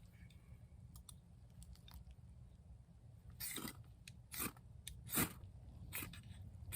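Repeated short, sharp scraping strikes, about one a second, from lighting a waterproofed cotton fire starter, preceded by a few faint clicks.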